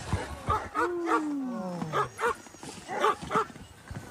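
Sled dogs barking and yipping in quick, repeated short barks, with one long cry sliding down in pitch about a second in.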